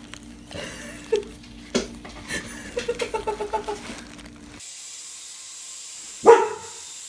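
A dog barks once, sharply, about six seconds in, over the faint steady high whine of a small toy helicopter. Before that, faint crinkles and a quick run of short pitched sounds.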